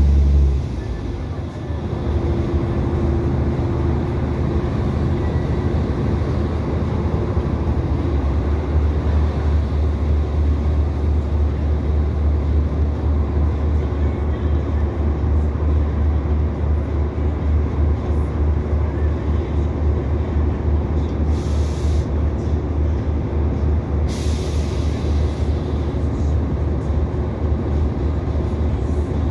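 Inside an Irish Rail 2800 class diesel railcar on the move: a steady low rumble of the underfloor engine and the wheels on the track. The engine's hum drops away about a second in. Two short hisses come near the end, the second fading out.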